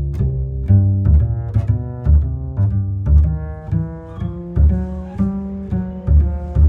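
Background music: a steady, rhythmic low bass line under a melody of short pitched notes, with light regular clicks of percussion.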